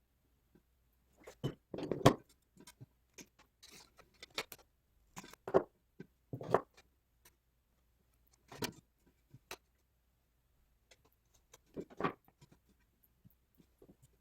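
Small hard parts being handled: scattered clicks and knocks, the loudest about two seconds in and again near the end.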